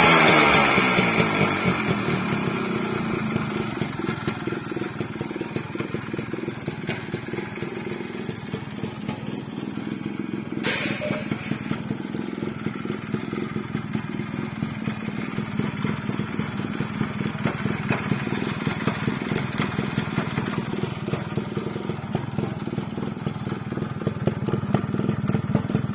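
Suzuki Samurai motorcycle's stock two-stroke single-cylinder engine dropping back from a rev at the start, then idling steadily with a fast pulsing beat. A single sharp click sounds about eleven seconds in.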